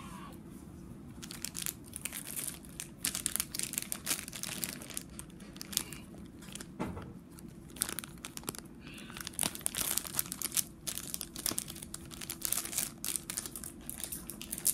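Plastic Skittles candy bag crinkling and crackling in irregular bursts as it is handled.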